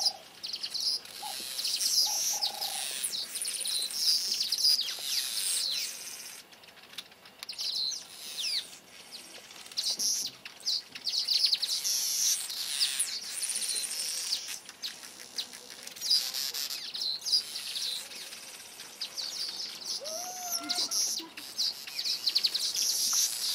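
Village weavers chattering: a dense stream of rapid, high chirps and trills that comes in bursts with short lulls.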